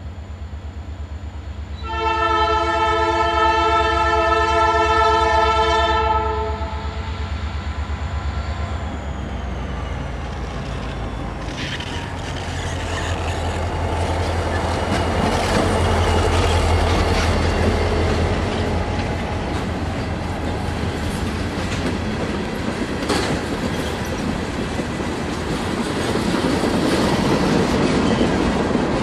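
Freight train led by a Norfolk Southern EMD SD40-2 diesel locomotive passing close by. Its air horn sounds one long blast of about four seconds a couple of seconds in, then the locomotive's engine goes by a little before halfway, followed by freight cars rolling past with wheels clicking over the rail joints.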